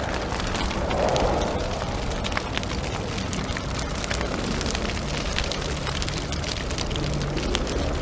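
Steady rumbling noise scattered with many small crackles and pops, cut off sharply at the end.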